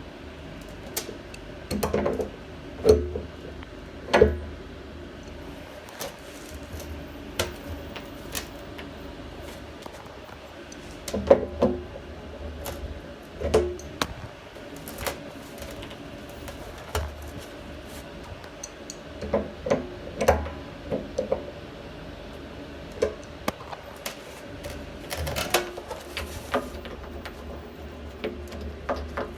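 Irregular clicks, knocks and small clatters of a wrench working the nut onto a float valve's threaded stem through the tank wall, some in quick clusters, over a steady low hum.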